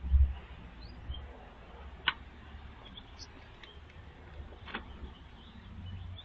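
Faint, brief chirps of small backyard birds over a low rumble that is loudest just at the start, with two sharp clicks, about two seconds and about five seconds in.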